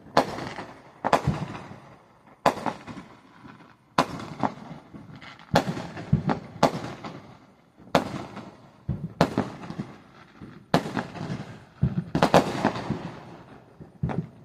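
Fireworks going off in a steady series of sharp bangs, about one a second, each trailing off in a brief echo.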